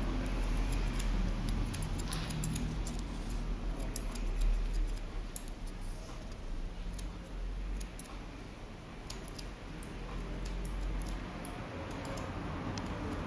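Barber's scissors snipping short hair over a comb: an irregular run of quick, light metallic clicks, over a low background rumble.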